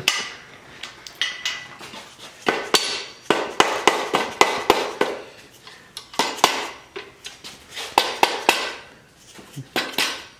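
Mallet knocking on a Honda D16 engine's main bearing girdle: a run of sharp, irregular taps in two bunches, with metal clinking. The girdle is being loosened off the crankshaft to read the Plastigauge.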